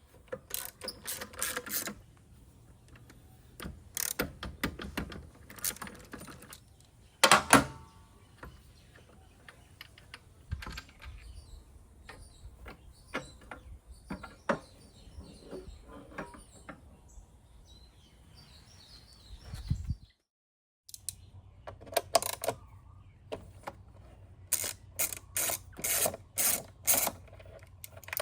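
Metal hand tools working on a scooter's rear brake: scattered clicks and knocks, one loud ringing metal clank about seven seconds in, and runs of quick ratchet-like clicking near the end.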